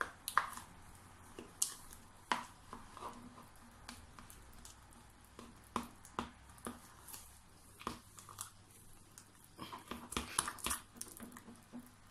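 A metal spoon stirring thick chestnut purée mixed with lye in a plastic cup: scattered scrapes and clicks, coming faster about ten seconds in.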